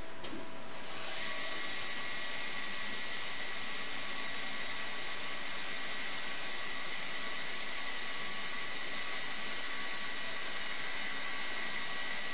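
CNC machine spindle running, a steady high-pitched whine over a rushing hiss, coming in about a second in.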